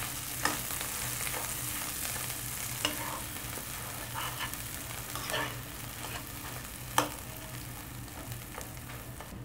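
Mashed potato filling sizzling as it fries in mustard oil in a nonstick pan, turned with a metal spatula. The spatula scrapes the pan now and then and gives a few sharp taps against it.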